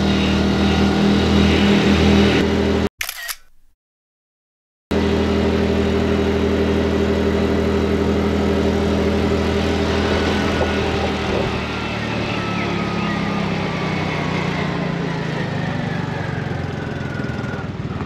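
Tuk-tuk's small engine running steadily, with a break of silence about three seconds in. After the break it runs on and drops slightly in pitch in the second half.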